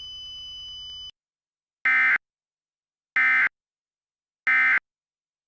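Emergency Alert System end-of-message signal: three short identical bursts of digital SAME data tones, a little over a second apart. A faint steady high tone cuts off about a second in, before the first burst.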